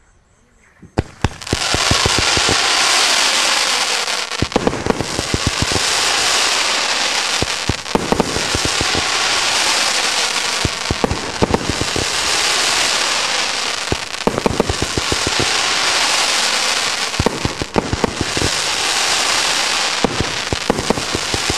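A 110-shot fan-shaped 1.3G fireworks cake firing, starting about a second in: quick clusters of sharp launch thumps over a continuous loud hiss and crackle from silver and crackling comets.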